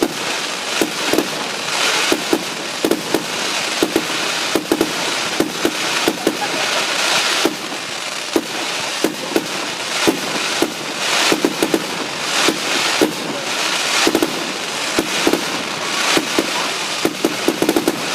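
Fireworks display going off: a rapid, continuous string of sharp bangs, several a second, over steady crackling.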